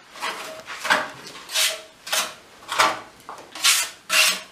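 Rhythmic scraping or rubbing strokes, about seven in a row, roughly one every two-thirds of a second.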